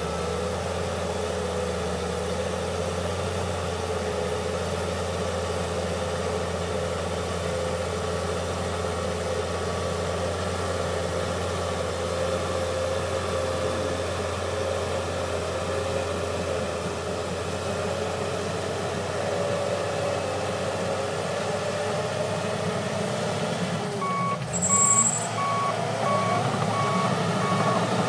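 John Deere 700H crawler bulldozer's diesel engine running steadily under work. Near the end its reverse alarm starts beeping at an even pace as it backs up, with a brief high squeal as it starts to reverse and the engine note shifting.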